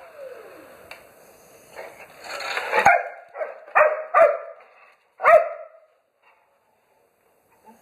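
A dog barking four times in quick succession, about half a second to a second apart, while worked up at a vacuum cleaner.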